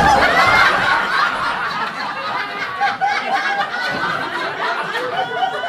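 Theatre audience laughing, many voices at once in a sustained wave that holds throughout.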